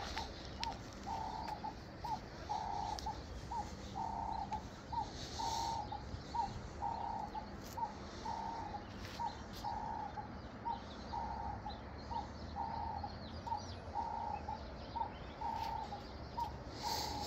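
A dove cooing over and over in a steady rhythm, each phrase a short note and a longer note repeating about every second and a half. A few faint rustles come through now and then.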